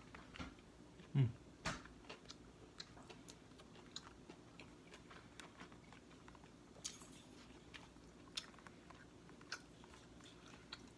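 A man chewing a White Castle slider close to the microphone: scattered wet mouth clicks and smacks. A short, louder low thump about a second in.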